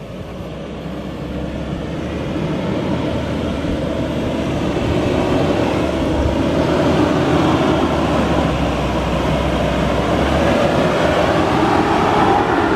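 Ford Endeavour 3.2 five-cylinder diesel SUV climbing a sandy off-road track under power, its engine note growing steadily louder as it approaches.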